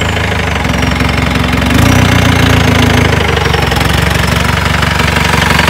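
Modified off-road jeep's engine idling with a fast, even beat, picking up slightly in revs and loudness about two seconds in.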